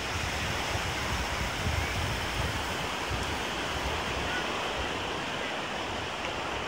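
Ocean surf breaking and washing up the beach, a steady rushing noise, with wind gusting on the microphone as uneven low rumbles.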